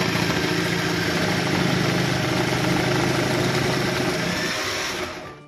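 Braun MultiQuick 9 hand blender motor driving the food processor attachment's small shredding disc, running steadily as apple is shredded. It stops near the end.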